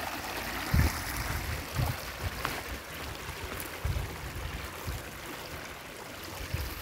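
Shallow river water trickling and flowing over stones and around sandbags, a steady wash of sound. About five soft low thumps sound through it.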